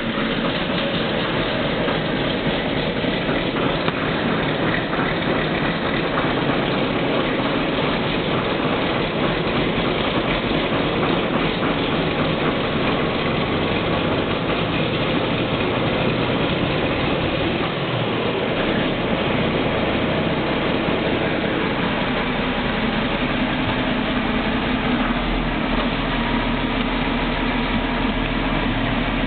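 John Deere 8630's 619-cubic-inch six-cylinder diesel running steadily just after a cold start at about 30 degrees, heard from inside the cab. A deeper steady note comes in about three-quarters of the way through.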